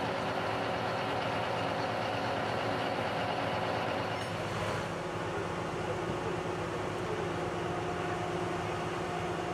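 Diesel engines of heavy rail-recovery machinery running steadily, a constant mechanical din with a held hum. The sound shifts slightly about four seconds in.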